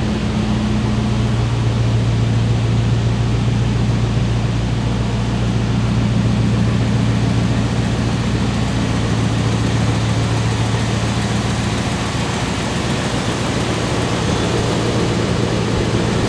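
Truck V8 engine idling steadily, a constant low hum under a hiss.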